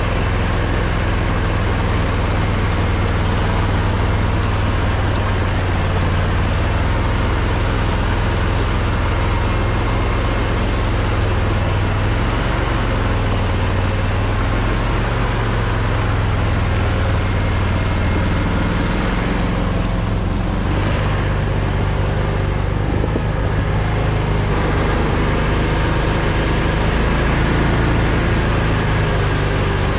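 Argo Aurora 8x8 950 amphibious ATV running on half tracks, its engine droning steadily as it drives.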